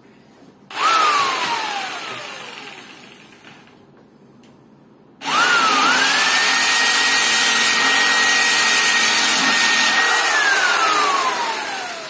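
Corded electric jigsaw triggered briefly about a second in, its motor whining up and coasting down, then run again about five seconds in at a steady high whine for some four seconds with the blade against a table's metal tube frame, before winding down near the end. Loud.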